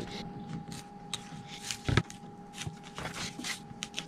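A knife trimming the edge of a corrugated plastic (Coroplast) winglet: a run of short, irregular scraping strokes, with one heavier knock about two seconds in.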